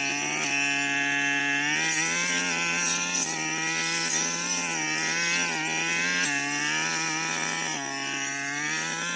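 Brush cutter engine running at high revs, its pitch dropping and climbing back several times as it works through the scrub.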